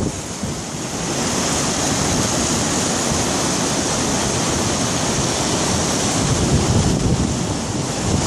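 Creek water rushing and splashing over rocks in a steady hiss, with wind buffeting the microphone.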